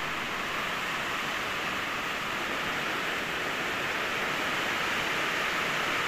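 Heavy rain falling steadily, a dense, even hiss.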